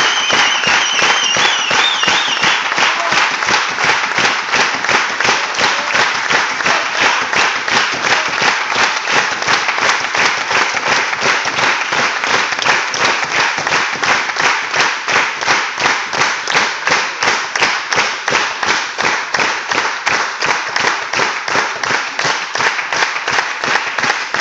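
Audience applauding: dense, loose clapping at first, which settles about halfway through into rhythmic clapping in unison at about three claps a second.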